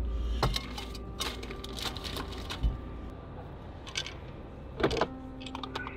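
Scattered clicks, knocks and light rattles of things being handled, including a stainless steel kettle, with one sharper knock about five seconds in.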